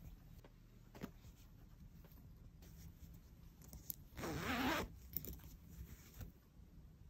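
The zipper on an embroidered fabric pouch being pulled open in one quick stroke, a little over four seconds in, with a few faint handling ticks before it.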